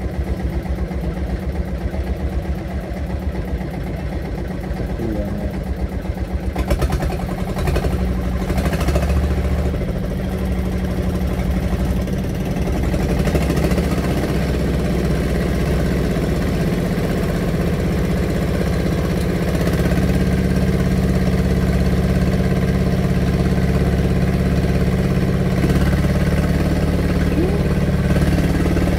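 An engine running steadily, getting a little louder and fuller about two-thirds of the way through.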